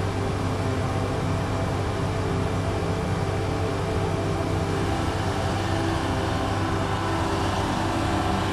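Woodworking machine running steadily: an even motor hum under a broad rushing noise.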